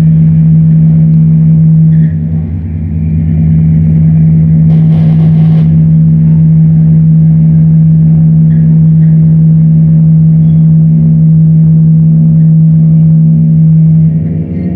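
Loud electronic noise-music drone: one steady low tone with overtones held over a rumbling undertone, with a short burst of hiss about five seconds in.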